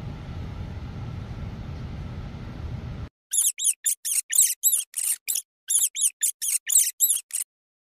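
A steady low background rumble cuts off about three seconds in. Then a small rodent squeaks in a rapid run of short, high chirps, about five a second, with a brief pause midway.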